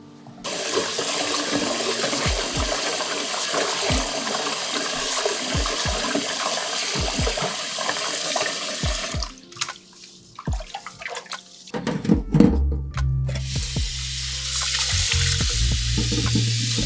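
Kitchen tap running into a stainless-steel bowl in the sink as glutinous barley and lentils are rubbed and rinsed by hand. It breaks off for a couple of seconds about halfway, with a few small clicks. Then the water runs again over the grain in a mesh sieve.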